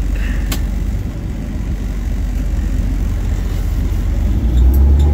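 Tow truck's engine and road noise heard from inside the cab while driving, a steady low rumble that grows louder about four and a half seconds in. A single sharp click comes about half a second in.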